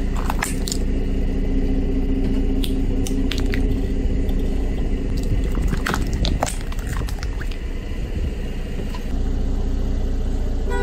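Car tyre rolling slowly over plastic sand toys on brick paving: sharp cracks and snaps of the plastic breaking, in clusters during the first seven seconds, over the low steady hum of the car's engine.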